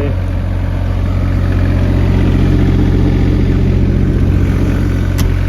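Mini excavator's small diesel engine idling steadily, swelling slightly in the middle. A single sharp click sounds near the end.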